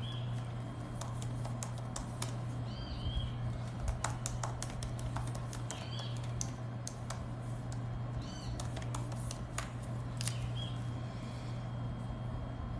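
Light irregular clicks, like typing or tapping, with a short high chirp every few seconds over a steady low hum.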